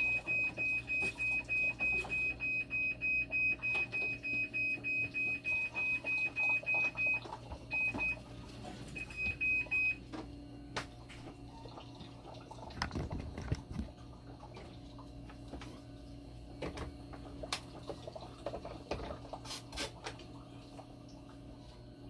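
Alarm of a Fresenius 2008K2 hemodialysis machine beeping rapidly in one steady high tone, about two to three beeps a second. The machine has a flow error. The beeping falters and stops about ten seconds in. After that a low steady hum and scattered clicks go on.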